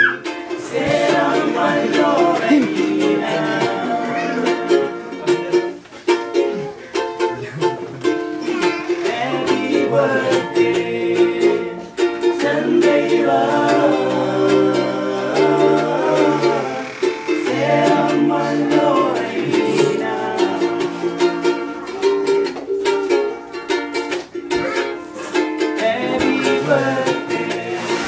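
A group of male voices singing together in chorus, accompanied by a strummed stringed instrument, with the sound of a small room around them.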